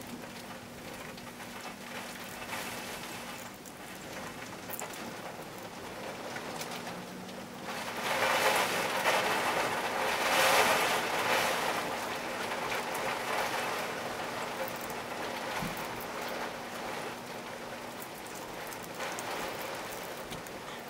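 Rain falling, a steady hiss that grows louder for a few seconds about eight seconds in.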